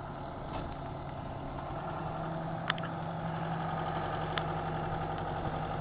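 John Deere 160C excavator's diesel engine idling steadily, with a low steady hum joining about two seconds in and a couple of faint clicks.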